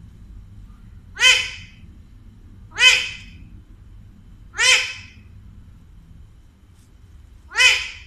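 Alexandrine parakeet giving four loud, short squawks, each rising then falling in pitch, spaced one to three seconds apart.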